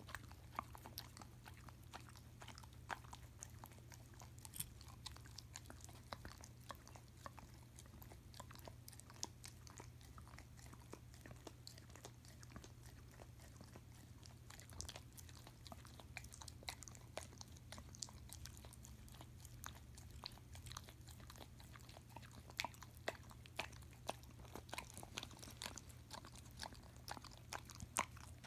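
A German Shepherd licking and smacking creamy peanut butter off a metal spoon: a stream of small wet mouth clicks, busier in the second half, over a low steady hum.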